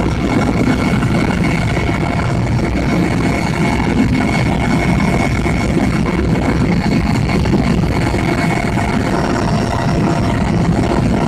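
Helicopter engine and rotor noise heard from inside the cabin in flight: a loud, steady drone with a thin high whine held over it.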